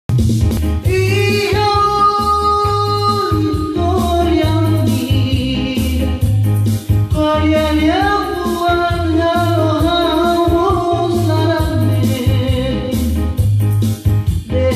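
A man singing into a microphone with long held notes, one sliding up in pitch about halfway through, accompanied by an electronic arranger keyboard playing a steady bass rhythm.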